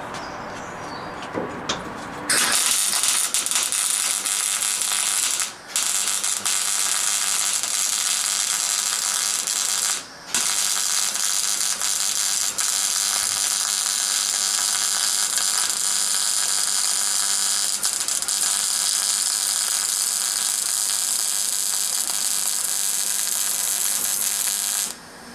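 MIG welding arc crackling steadily as a bead is laid, with straight CO2 as the shielding gas. It starts about two seconds in, breaks off twice briefly, and stops just before the end.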